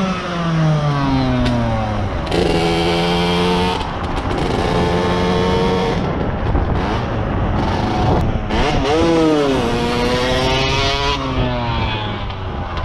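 Motorcycle engine running as the bike is ridden, its pitch falling as the throttle comes off, holding steady for a few seconds, then rising and falling again about nine seconds in, over rushing wind noise.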